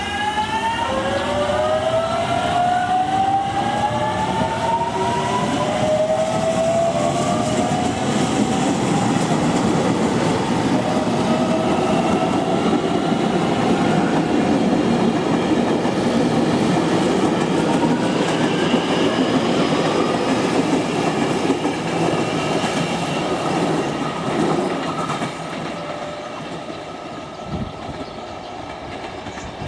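JR Kyushu 813 series electric train pulling past. Its motor whine rises in pitch over the first several seconds as it gathers speed, over a steady rumble of wheels on rail with some clicking over rail joints. The sound fades after about 25 seconds.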